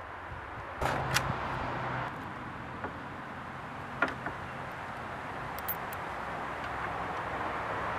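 Short metallic clicks and taps from bolts and fittings being handled against a steel hitch bike-rack bracket, a pair about a second in and single ones around four and six seconds in, over a steady outdoor background hiss.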